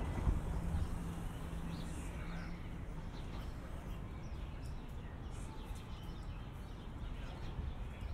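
City street ambience: a steady low rumble of traffic, with an engine hum in the first two or three seconds, and faint regular footsteps on the pavement.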